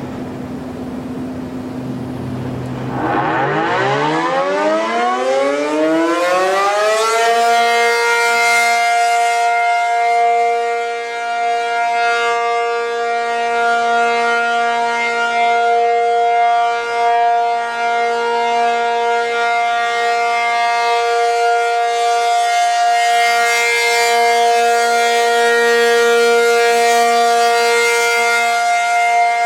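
Outdoor tornado warning siren winding up: after a low hum, its pitch rises from about two and a half seconds in, reaches full pitch around seven seconds, and then holds one loud, steady tone, the steady alert signal.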